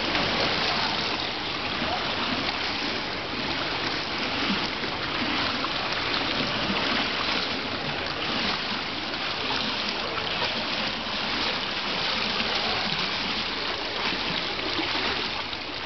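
Steady rushing and splashing of water.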